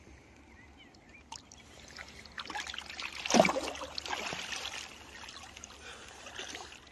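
Shallow water splashing as a released sea trout kicks free of the hand and swims off. The loudest splash comes a little past three seconds in, then the water settles to a light lapping.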